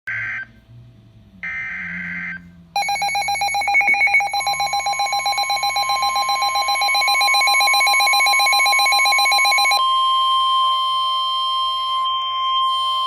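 Emergency Alert System signal: the last two short, screeching data bursts of the digital header, then a loud attention alarm of a rapidly pulsing tone joined by a steady tone. The alarm changes to steadier tones near ten seconds in and holds.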